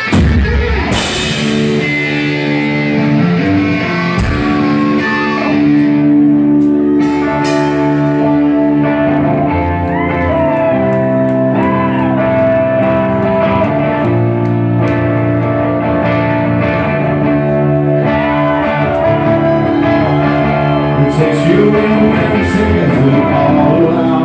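Hard rock instrumental passage led by electric guitars, with held chords and a lead guitar bending notes, before the vocals come in.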